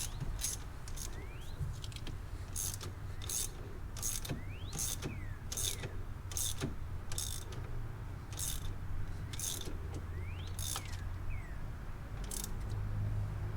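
Ratchet wrench tightening a nut on a short-shifter linkage: about a dozen short raspy ratcheting strokes, spaced roughly half a second to a second apart, as the handle is swung back and forth.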